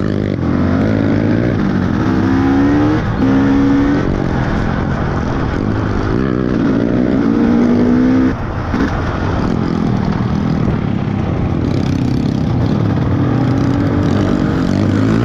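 Off-road trail motorcycle engine revving under load, its pitch climbing several times as the throttle is opened, then falling away suddenly about eight seconds in before picking up again.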